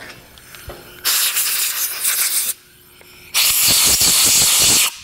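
Two bursts of pressurised spray hissing, each about a second and a half long and cutting off sharply, clearing metal chips out of a freshly tapped head-bolt hole in a Cadillac Northstar V8 block.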